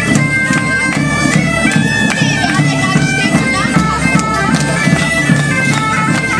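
Medieval-style folk dance music played live: a high melody in held, stepping notes over a steady drone, with drums beating along.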